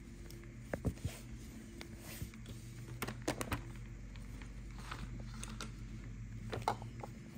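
Handling noise from plush and plastic toys: scattered soft knocks, clicks and rubbing, a few sharper knocks about a second in, around the middle and near the end, over a steady low hum.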